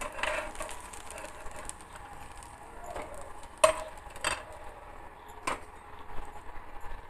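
Metal spatula scraping and clinking against a non-stick frying pan as cooked semolina cakes are lifted out, with four separate sharp clinks spread over the seconds, the loudest about midway.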